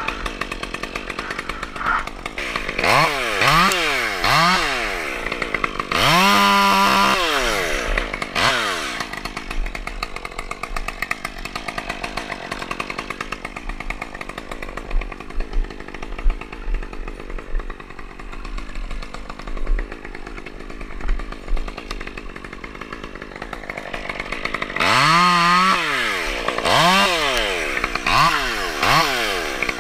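Two-stroke chainsaw revved up and down in short bursts, settling to a steady idle for about fifteen seconds in the middle, then revving repeatedly again near the end.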